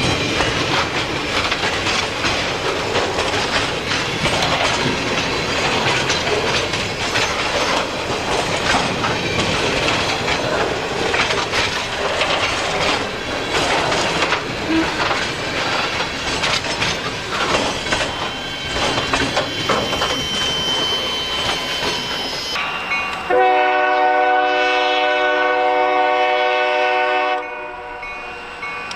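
Freight train rolling with steel wheels clattering over the rails. About three-quarters of the way through, the EMD SD40 locomotive's horn sounds a steady multi-note chord for about four seconds, then cuts off.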